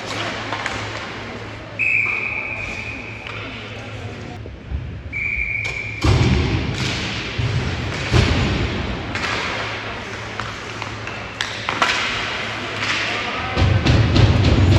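Ice hockey game sounds: a referee's whistle blown twice, about two and five seconds in, each a steady shrill tone, followed by a run of sharp knocks and thuds from sticks, puck and boards over a steady low hum.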